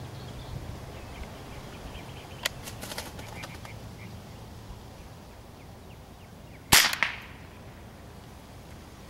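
A single shot from a Ruger 10/22 .22 rimfire rifle, a sharp crack about two-thirds of the way in, followed a quarter-second later by a second, smaller crack. A few faint ticks come earlier.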